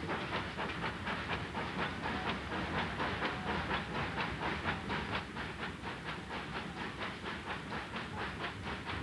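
Steam locomotive working steadily, its exhaust chuffing in a rapid, even beat of about five a second over a constant hiss.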